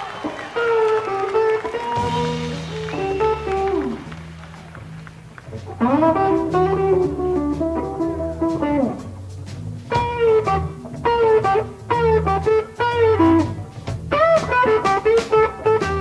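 Blues-rock band playing an instrumental passage: lead guitar lines with notes bent and sliding down in pitch, over a repeating bass line and drums.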